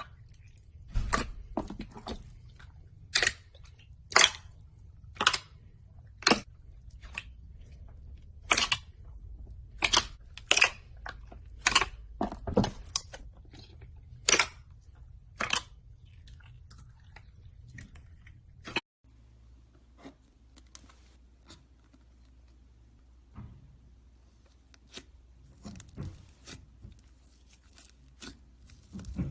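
Slime being squeezed and poked in the hands, giving sharp crackling pops about once a second. About two-thirds of the way in, these give way to softer scattered clicks, then a spell of fine crackling near the end.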